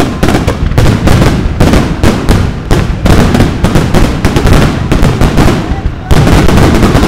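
Aerial fireworks going off in a rapid barrage: shell bursts and crackle banging several times a second with hardly a pause.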